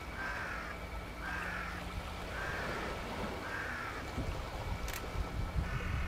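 A bird calling at the shore: four calls about a second apart, with another beginning near the end, over a steady low rumble. A sharp click sounds about five seconds in.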